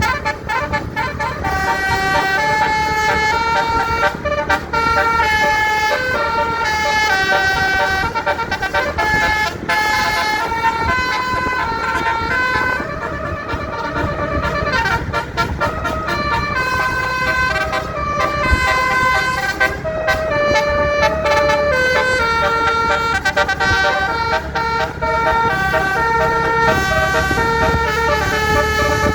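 Basuri telolet multi-tone electric horn on a tour bus playing a melody of quick stepped notes, over a low steady rumble.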